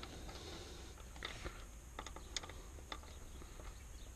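Faint, scattered small clicks and taps as a replacement door hinge pin and bushing are worked up into a truck door hinge, a few light ticks a second over a low hum.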